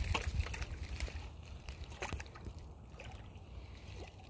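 Faint sloshing and trickling of swamp water with scattered small clicks, thinning out after the first second or so, over a steady low rumble on the microphone.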